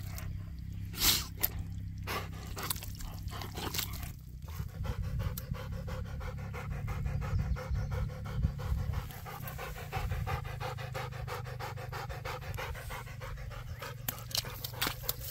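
A dog panting fast and steadily, hot and cooling off after wallowing in mud on a hot day. A few sharp clicks come in the first few seconds.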